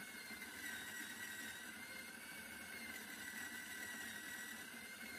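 Bodum Bistro electric burr grinder's motor running, grinding coffee beans, with a steady whine that wavers slightly in pitch.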